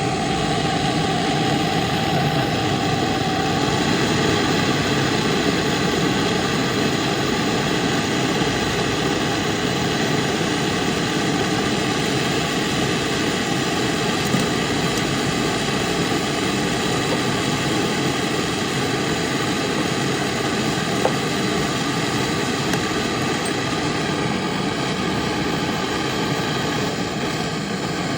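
A steady mechanical drone with several constant whining tones, unchanging throughout, with a couple of faint ticks.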